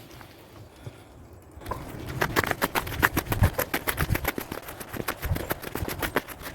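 Footsteps: a quick, even run of steps that starts about two seconds in after a quiet opening, each one a sharp click over a low thump.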